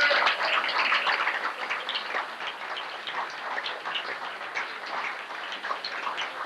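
Audience applauding, a dense patter of many hands clapping that is loudest at first and then settles to a steady level.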